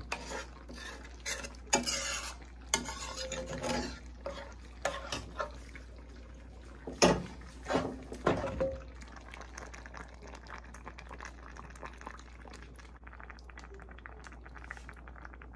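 Metal spoon stirring fish broth in a metal pan, scraping and clinking irregularly against the pan, with the sharpest knocks about seven to eight seconds in; after that it quietens.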